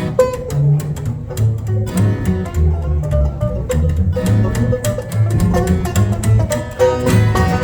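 Bluegrass string band playing a tune: a plucked bass line under picked guitar and banjo, with held melody notes above.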